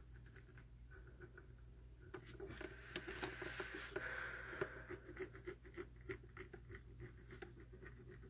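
Pen scratching on sketchbook paper in quick short strokes, busier and hissier from about two and a half to five seconds in, over a faint low hum.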